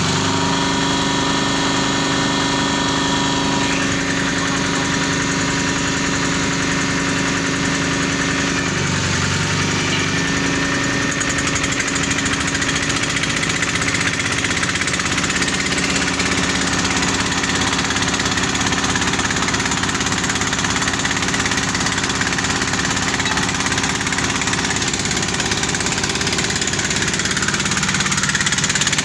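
Engines of a small portable borehole drilling rig and its mud pump running steadily under load while the bit drills and drilling mud is circulated, with a brief change in engine note about nine seconds in.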